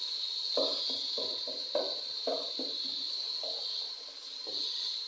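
A spoon stirring in an aluminium pot, scraping and tapping against it irregularly a few times a second, over a steady high hiss from the bubbling pot.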